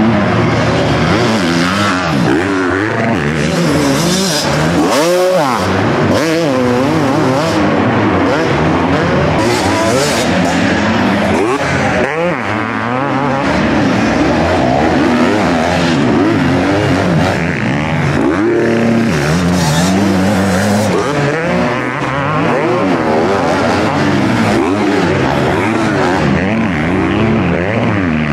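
Several 250 cc motocross bikes racing, their engines revving hard and easing off over and over, with the pitches of different bikes overlapping and rising and falling constantly.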